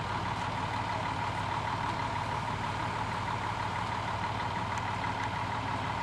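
Diesel railcar idling at a standstill: a steady low engine rumble with a constant whine above it.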